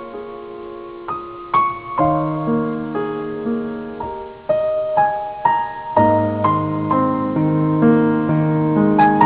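Soft solo piano music, slow and gentle, with notes struck and left to ring, thickening into fuller chords with a low bass line in the second half.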